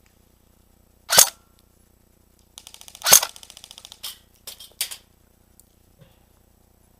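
Airsoft guns firing: a single loud shot about a second in, then a rapid burst of fast, evenly spaced shots with one loud crack in it around three seconds in, and a few more single shots just after.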